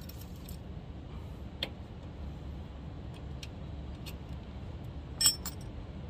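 A few light metallic clicks and clinks from hands working on parts inside an air conditioner's outdoor unit. The loudest is a quick cluster near the end. A low steady hum runs underneath.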